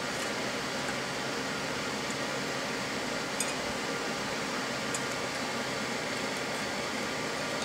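Steady, even background hiss of room noise, with two faint light clicks about three and a half and five seconds in as hands handle the wiring inside an amplifier chassis.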